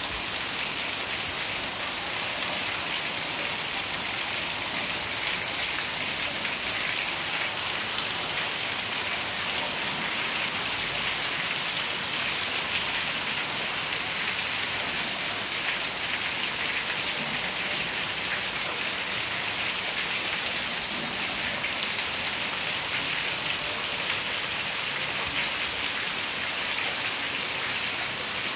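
Heavy rain falling steadily, an even hiss of drops on concrete, walls and tiled roofs, with runoff streaming off the edge of a roof.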